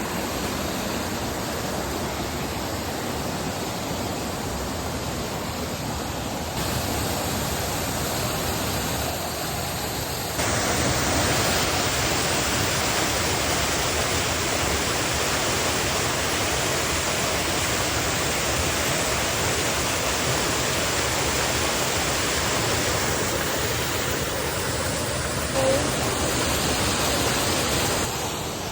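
Troll Falls waterfall pouring in a steady, full rush of water. The level steps up twice and drops near the end, and there is one brief blip late on.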